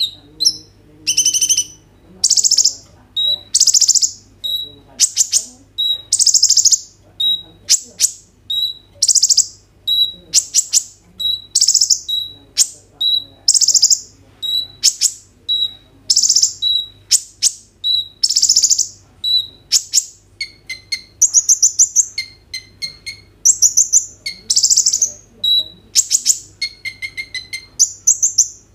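A male kolibri ninja (Van Hasselt's sunbird) sings hard: loud, high, sharp song phrases repeated about once a second, with short chips between them. About two-thirds of the way through it switches to faster, stuttering runs of notes.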